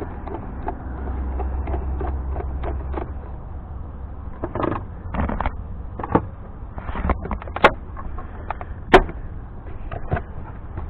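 Scattered clicks, knocks and rattles of plastic engine-bay parts being worked loose as a truck's air box is disconnected, with two sharp clicks in the second half, over a low steady hum.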